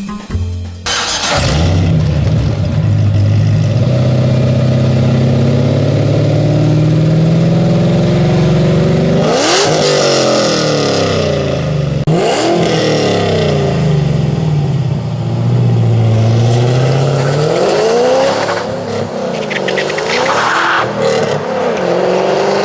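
Supercharged 6.2-litre V8 of a Cadillac CTS-V coupe running through stainless long-tube headers, an X-pipe and oval mufflers, accelerating. The exhaust note climbs steadily in pitch, breaks sharply and climbs again about ten and twelve seconds in, as on upshifts, and settles into a steadier, slowly rising tone near the end.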